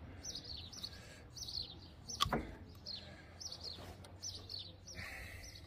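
Birds chirping: repeated short, high, falling notes in small clusters. A single sharp knock a little over two seconds in.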